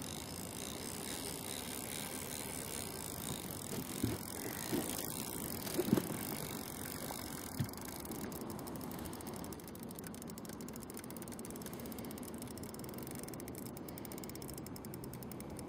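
Spinning reel ticking fast and evenly while a large catfish is played on a hard-bent rod, with a few short knocks of handling in the boat about halfway through.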